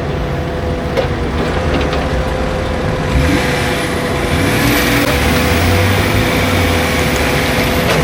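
Off-road 4x4 vehicle engine running and revving, growing louder about three seconds in as its pitch rises.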